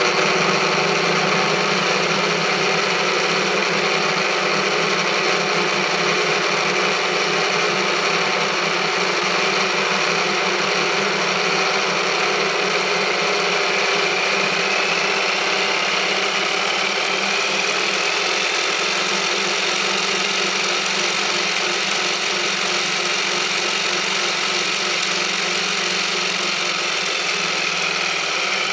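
Shaking table driving a model pagoda: its motor runs steadily while the model's loose, sliding floor joints rattle and knock against the central pillar. A faint whine rises in pitch partway through and falls again near the end.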